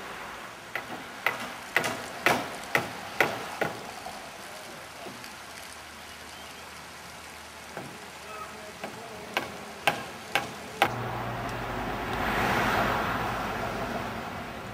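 Hammer blows at about two a second, a run of seven and then a run of four, over a steady rushing background; typical of workers nailing timber formwork. Near the end a broader rushing noise swells and fades.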